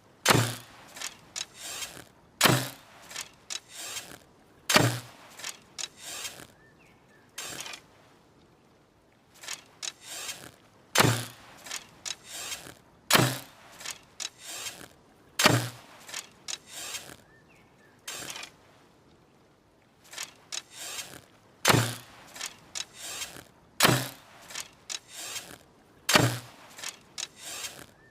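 Hunting bow and arrow being handled and shot, heard as runs of sharp clicks and creaks with a heavier thunk about every two seconds. The same run repeats, with short pauses about 8 and 19 seconds in.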